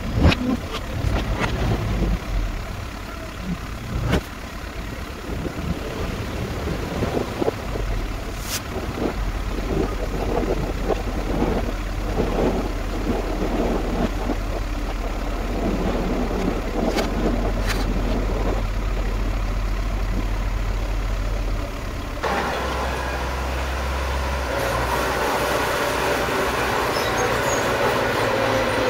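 Dump truck's diesel engine running while its raised bed tips out a load of soil, with dirt and stones sliding and knocking as they pour off. About three-quarters of the way through, the sound changes abruptly to a small crawler bulldozer's engine running steadily as it pushes the soil.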